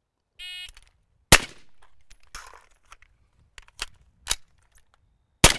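Shot-timer beep, then an AR-style rifle fires a single shot. A few clicks and clacks of the magazine change and bolt follow, then a second rifle shot near the end. This is a combat reload: one shot, a fresh magazine into a rifle run empty, one more shot.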